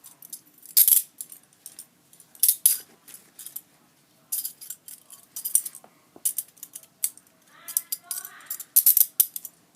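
A pair of metal handcuffs being handled: their chain and steel cuffs clink, with an irregular run of short, sharp, high-pitched metallic clicks and jingles.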